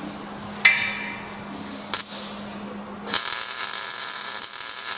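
A metal clank that rings briefly about half a second in and a short click near two seconds, then a MIG welder's arc crackling steadily from about three seconds in as a reinforcing plate is welded onto the car's sheet-metal body.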